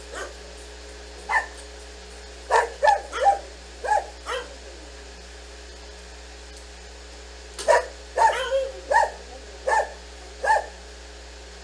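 A dog barking in short, sharp barks, about a dozen in two bursts with a pause of a few seconds between them: play barks, one dog urging another to play.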